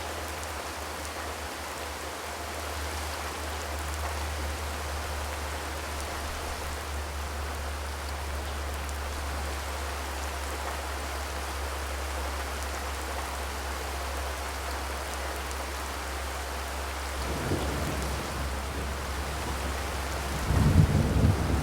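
Steady rain falling, an even hiss. A deep rumble swells in late on, and a louder one comes near the end.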